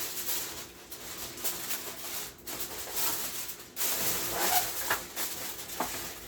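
Aluminium foil crinkling and rustling as it is pressed back over a pan of jerk chicken. A faint pitched call or voice comes through about four and a half seconds in.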